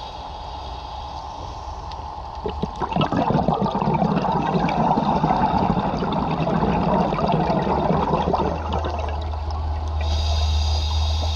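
Scuba diver breathing through a regulator underwater: after a quieter hissing stretch, a loud rush of exhaled bubbles starts about two and a half seconds in and lasts about six seconds. A low steady hum comes in near the end.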